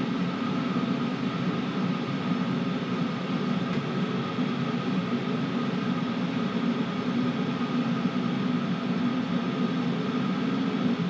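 Chinese 5 kW diesel air heater running steadily at full heat: an even whooshing noise of the burner and blower fan, with a faint steady whine over it.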